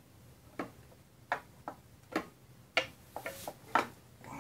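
Light clicks and knocks, about seven at irregular intervals, as metal drive parts are handled and worked into place by hand at the swingarm of a Sur Ron Light Bee electric dirt bike.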